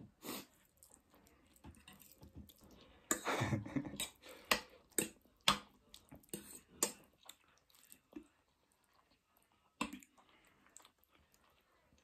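Mouth sounds of someone eating spicy ramen noodles: irregular wet chewing clicks and smacks, with a louder stretch about three seconds in.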